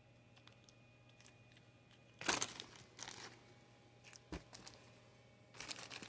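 Plastic packaging crinkling in a few short bursts as it is handled.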